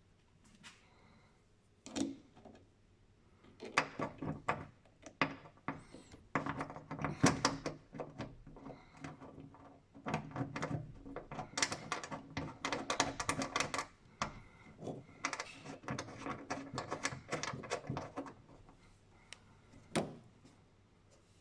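Bursts of rapid mechanical clicking and clattering, with single knocks about two seconds in and near the end.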